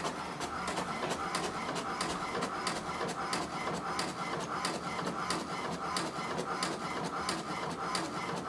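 HP DeskJet 4255e inkjet printer printing a page: the motor whirs steadily, with a regular run of clicks as the print head passes and the paper advances.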